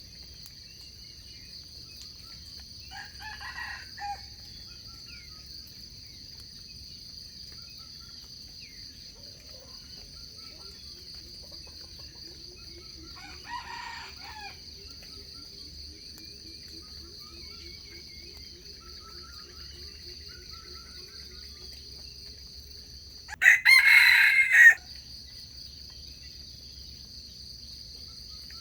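Wild junglefowl roosters crowing: two faint, distant crows, then one loud, close crow about three-quarters of the way through. Under them runs a steady, high insect drone.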